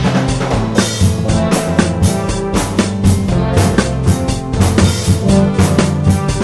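Drum kit playing a steady rock beat of bass drum, snare and cymbal hits within a music track, over a held bass line and other pitched instruments.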